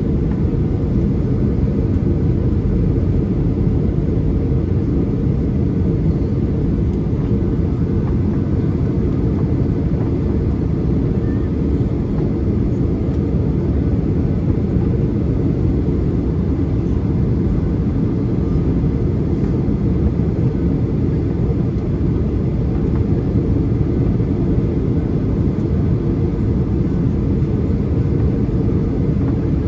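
Steady cabin noise of a Boeing 737-800 airliner on approach to land: engine and airflow noise, low and even, with no change in level.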